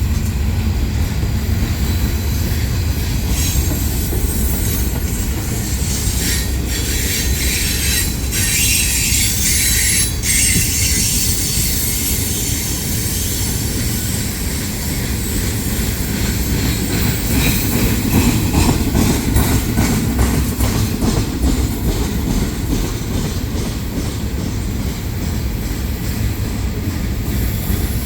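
Freight train cars rolling past: a steady low rumble of steel wheels on rail, with repeated clicks over the rail joints and a thin high wheel squeal.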